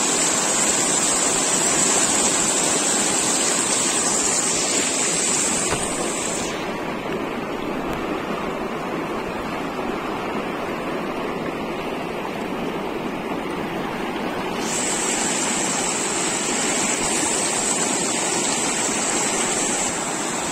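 Fast stream water rushing steadily against a fishing net held in the current. From about six seconds in until about fifteen seconds the rush goes duller, losing its hiss, before the full rush returns.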